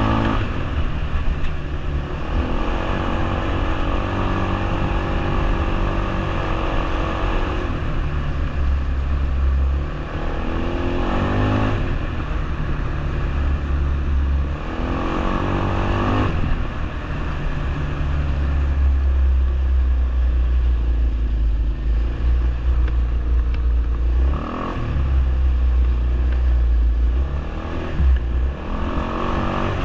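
ATV (quad bike) engine running while riding, revving up and easing off several times, over a heavy, steady low rumble.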